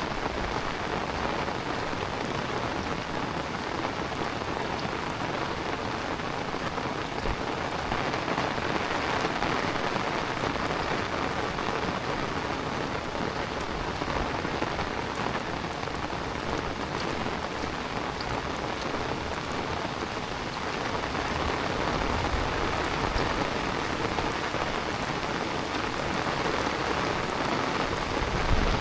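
Heavy rain falling steadily, a dense, even hiss of drops on surfaces. A low rumble comes up in the last third.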